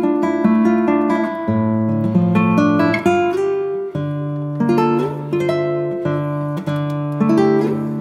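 Background instrumental music: acoustic guitar playing plucked chords in a steady rhythm, with the chord changing every second or so.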